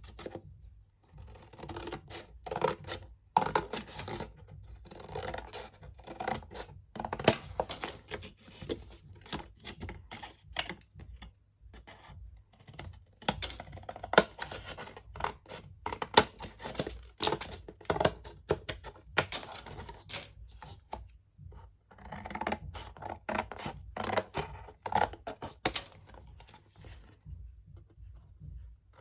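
Paper and cardboard being handled: irregular rustling and scraping with many sharp taps and clicks, broken by brief pauses.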